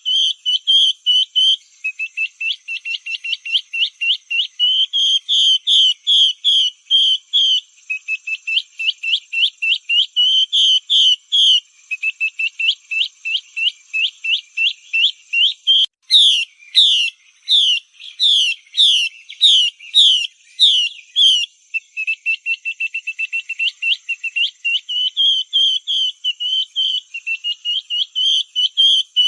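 Female Chinese hwamei (melodious laughing thrush) calling: rapid runs of short repeated notes, several a second, broken about halfway through by a few seconds of louder, slower upward-sweeping whistles, over a faint steady high tone. It is a lure recording of the female, played to set male hwamei singing.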